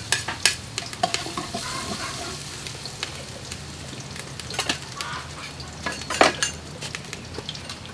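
Chopped garlic frying in hot cooking oil in a metal pot, with a steady sizzle. Several sharp metallic clicks and knocks come through it, the loudest about six seconds in.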